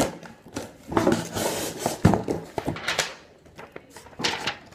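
Cardboard shipping box and paper being handled: rustling and scraping in uneven bursts as the box is opened and the paperwork pulled out, with a sharp knock about two seconds in.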